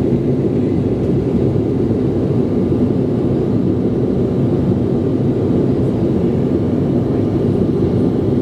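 Steady low rumble of jet engines and rushing air, heard from inside a jet airliner's cabin during the climb after takeoff.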